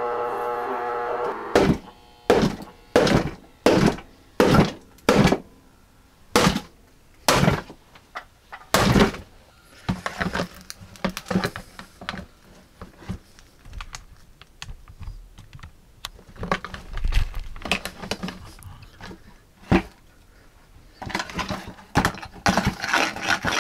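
Hatchet chopping into a cheap particleboard subwoofer cabinet. About nine heavy blows in quick succession crack and splinter the board. Quieter crunching and rattling of broken pieces follow, then a fast flurry of blows near the end.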